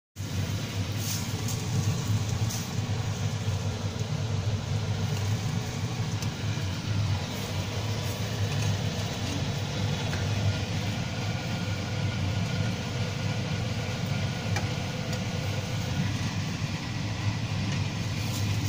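Steady low machine hum with an even hiss over it and a few faint clicks.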